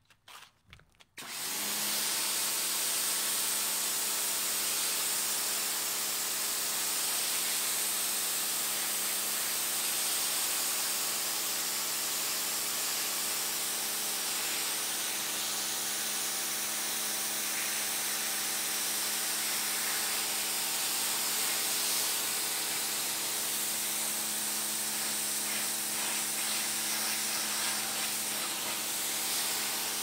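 Pressure washer running: the pump motor hums a steady tone under the hiss of the water jet spraying a seatbelt strap on concrete. It starts abruptly about a second in and then runs steadily.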